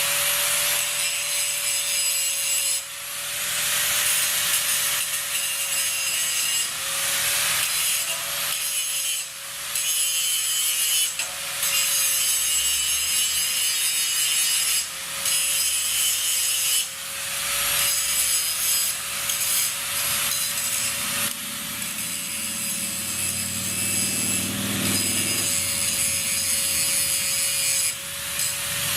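3-inch grinder running with a steady whine while its wheel grinds a sharp edge back onto a worn forestry mulcher tooth. The grinding breaks off briefly every few seconds as the wheel is lifted and repositioned on the bit.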